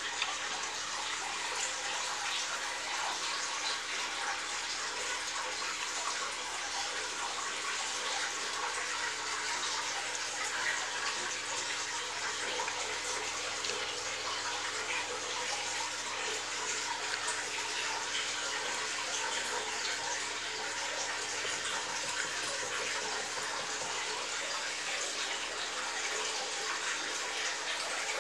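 Steady running, splashing water from the fish tank's water circulation, at an even level throughout, with a faint steady low hum underneath.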